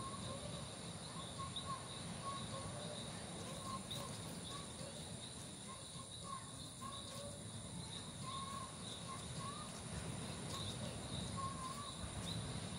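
Outdoor night ambience: a small animal gives short chirps, repeating irregularly a little over once a second, over a steady high insect drone and a low background rumble.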